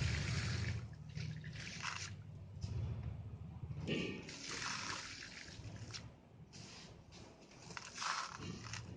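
Red sand-cement chunks being crushed and crumbled by hand, in irregular bursts of gritty crunching with loose sand trickling down.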